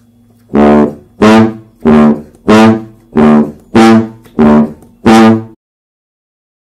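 Sousaphone playing a ranchera bass line in E (Mi): eight short, detached low notes in a steady two-beat rhythm, about three notes every two seconds.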